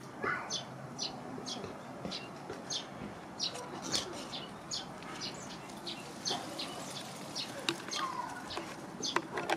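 A small bird calling over and over, short high chirps about twice a second, over a steady outdoor background.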